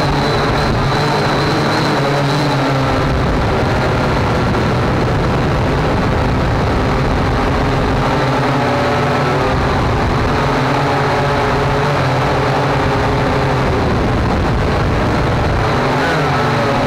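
Motor and propellers of a small radio-controlled aircraft, heard from the camera on board: a steady whine with several tones that rise and fall together as the throttle changes, over a constant noisy rush.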